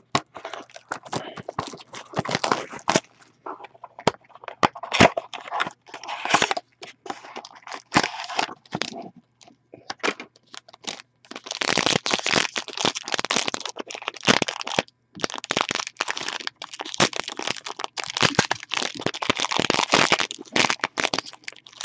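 Trading-card box packaging being opened by hand: cellophane, cardboard and a foil pack wrapper crackling and crinkling. Scattered sharp clicks and short crinkles in the first half give way to near-continuous crinkling about halfway through.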